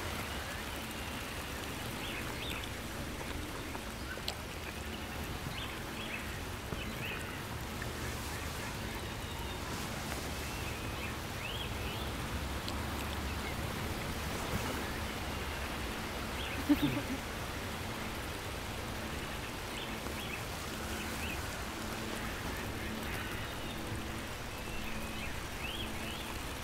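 Park ambience: a fountain's water trickling steadily into a pond, with small birds chirping now and then. A brief, louder call sounds about seventeen seconds in.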